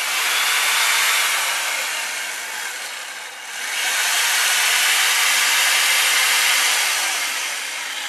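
Stihl chainsaw cutting into a block of ice, a steady hissing rasp of the chain through the ice. The cut eases off briefly about three and a half seconds in, then the saw bites in again.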